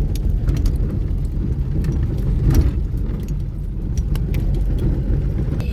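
Car running along a road, heard from inside the cabin: a steady low rumble of engine and road noise with scattered light clicks and rattles.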